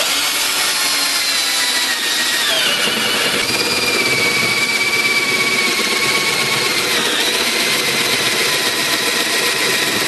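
Power drill boring a 1-inch spade bit into a block of wood. It starts abruptly and runs steadily, its motor whine shifting in pitch a few times.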